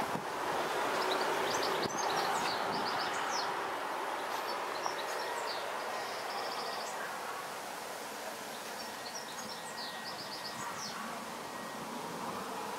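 Small birds chirping and trilling in short bursts of song, about a second in and again near the end, over a steady outdoor background hiss.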